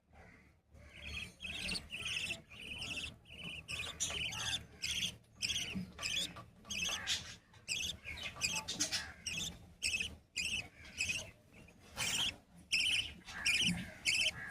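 Budgerigar chicks chirping: a rapid, steady run of short raspy calls, starting about a second in.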